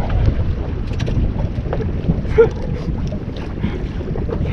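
Wind buffeting the microphone over water lapping against a small boat's hull, with scattered faint knocks and one short, sharper knock about two and a half seconds in.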